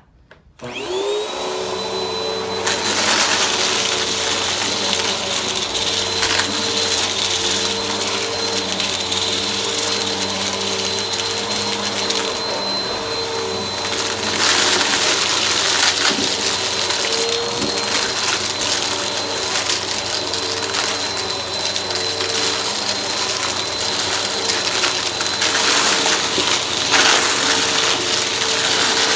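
Vacuum cleaner switched on with a click, its motor spinning up to a steady whine within about a second. It then runs continuously with a rushing suction sound that gets louder about two seconds in and swells and dips slightly as the vacuuming goes on.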